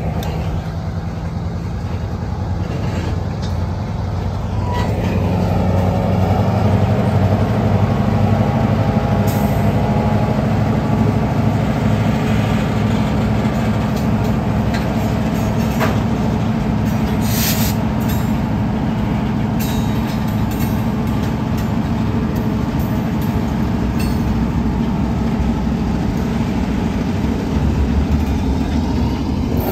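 Diesel locomotive engine running close by, a steady low throb, with railcars rolling on the rails and a few brief high squeaks.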